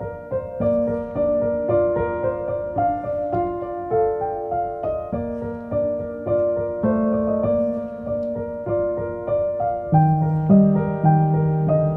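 Background music: a gentle piano piece of sustained notes, with deeper bass notes coming in more strongly near the end.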